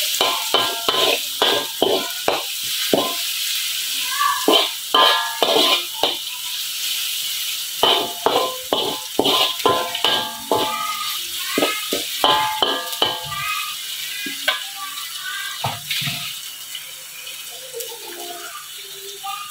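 Metal spatula scraping and clanking against a steel wok in quick, irregular strokes, over a steady sizzle of sliced lemongrass, garlic and shallots frying in oil. The strokes thin out near the end.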